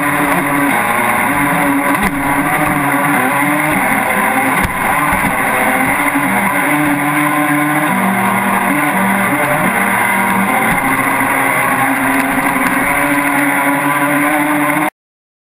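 RC speed boat's motor running, heard from on board, its pitch shifting up and down, over a steady rush of water against the hull. The sound cuts off abruptly near the end.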